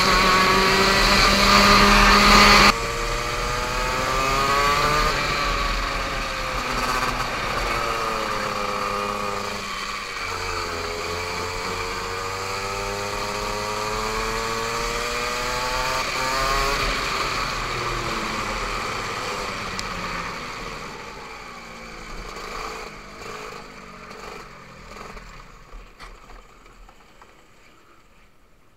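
Go-kart engine heard from the driver's helmet, running flat out, then dropping suddenly about three seconds in and rising and falling in pitch as the throttle is worked through the corners. From about twenty seconds in it fades away as the kart slows, and is nearly gone by the end.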